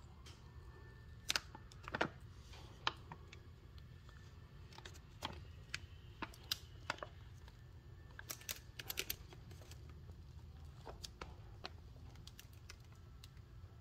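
Light, irregular clicks and taps from a hand gripping and turning a cardboard firework cake tube, its paper wrapper ticking under the fingers, with a quick cluster of clicks about eight to nine seconds in.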